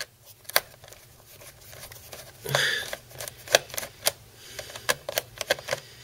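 A screwdriver turning out the small screw of the memory cover on a Compaq Presario CQ57 laptop's plastic underside: scattered light clicks and ticks, more frequent in the second half, with a brief scrape about two and a half seconds in.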